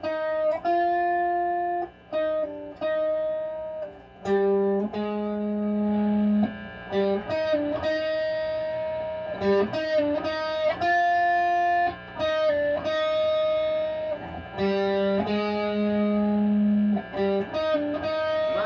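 Epiphone Casino hollow-body electric guitar played with a clean tone: a slow melodic riff of picked single notes and held notes, the same phrase played through twice with short breaks between parts.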